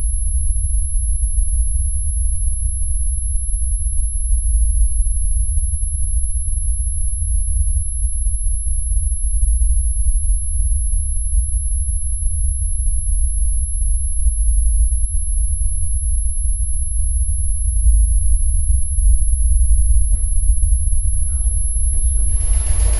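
Film ear-ringing effect after a nearby explosion: a steady high-pitched whine over a loud low rumble, standing for a soldier's stunned, deafened hearing. Faint other sounds start to come back in near the end.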